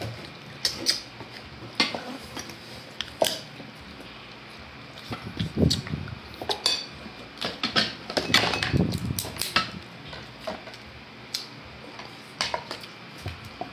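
Cooked lobster and freshwater prawn (pitu) shells being cracked and picked apart by hand over a plate: irregular sharp clicks and crunches with occasional clinks of plate and cutlery, and bouts of chewing and mouth noises.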